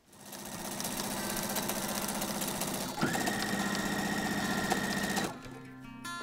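Sewing machine stitching at speed, its steady fast needle chatter changing in pitch about three seconds in, then stopping suddenly after about five seconds. Background music takes over at that point.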